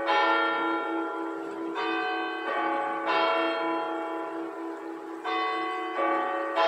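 Church bells ringing: about six uneven strikes, each left to ring on and overlap the next, over a low, pulsing hum.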